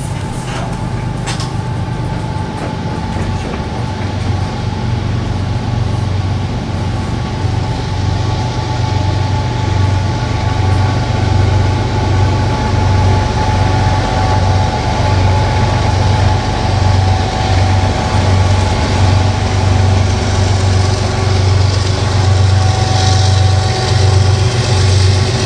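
Diesel locomotives of a Norfolk Southern freight train running, with a deep, regularly pulsing engine throb that grows steadily louder as the train approaches.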